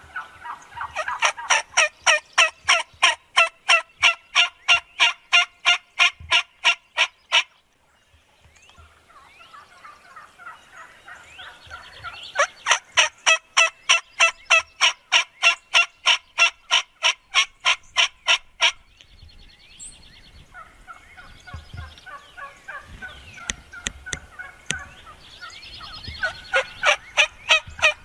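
Wild turkey yelping in three long, even runs of notes, about four a second, with softer scattered turkey and bird calls in the pauses between them.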